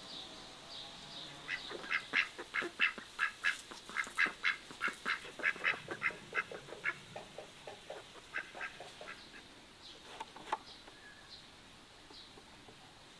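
Ducks quacking in a rapid run of short calls, about three or four a second, loudest early on and fading away after several seconds, with a couple more quacks near the end.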